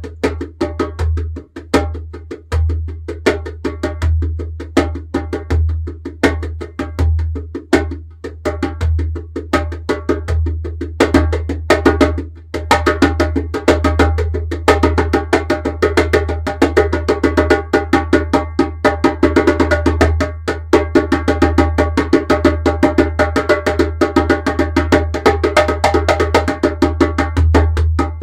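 Djembe played by hand in a fast solo, a dense stream of sharp strokes with a brief lull about twelve seconds in, thickening into nearly continuous rapid strokes over the second half.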